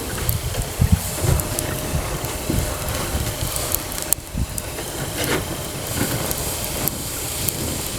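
Wood campfire burning: steady hiss with scattered sharp crackles and pops, over an uneven low rumble.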